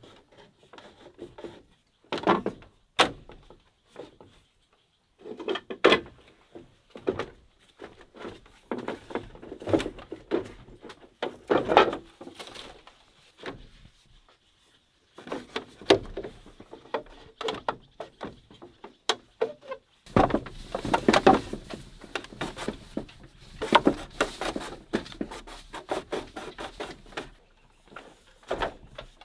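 Green bamboo poles knocking and scraping against each other as crosspieces are fitted into a bamboo chair frame: irregular hollow wooden clacks with rubbing between them and a few short pauses, growing busier in the second half.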